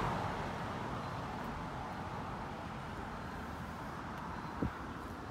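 Quiet outdoor background noise, an even hiss with no clear source, with a single soft thump about four and a half seconds in.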